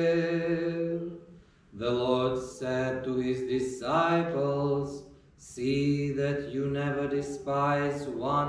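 Unaccompanied liturgical chant: voices singing long held notes in phrases, with brief pauses about one and a half and five seconds in.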